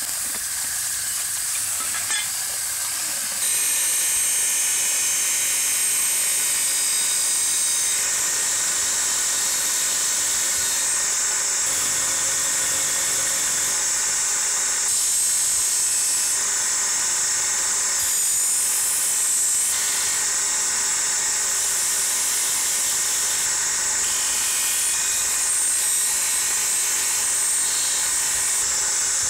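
High-speed power tool working on metal with a steady, high-pitched whirring hiss, stepping up louder about three and a half seconds in.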